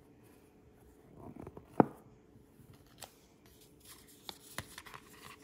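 Paper and cardboard packaging being handled: brief rustling, then one sharp tap about two seconds in, followed by a few lighter clicks and rustles.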